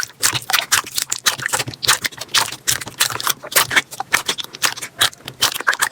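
Slime being squished and poked by hand, giving a quick, irregular run of sticky pops and crackles.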